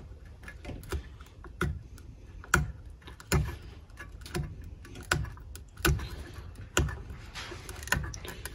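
Metal scraper blade working under a worn Velcro sanding pad on a floor edger's metal plate, along freshly scored lines: a series of sharp clicks and short scrapes, about one a second.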